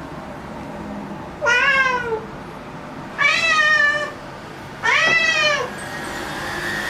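A domestic cat meowing loudly three times, drawn-out meows about a second apart that drop in pitch at the end, with a fourth starting just as it ends. The cat is worked up over an insect it has spotted.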